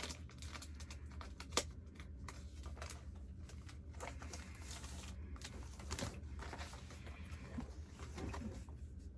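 Small handling noises of labels and plastic lip gloss tubes: light rustling and scattered clicks, with one sharper click about a second and a half in, over a low steady hum.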